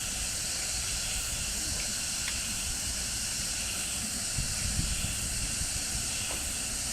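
A steady, even hiss of outdoor ambience, with irregular low rumbles of wind on the microphone, strongest about four to five seconds in.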